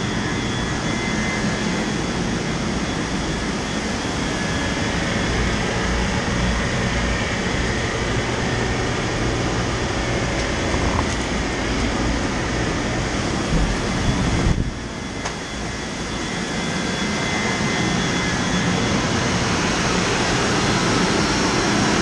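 Steady, loud running noise of an outdoor refrigeration plant: a rack of refrigeration compressors and a large electric pump motor running together, with a steady hum under the noise. The level drops suddenly about two-thirds of the way in, then builds back over a few seconds.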